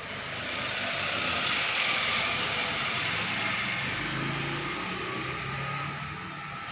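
Corded electric hair clippers running with a steady buzz as they cut a boy's hair.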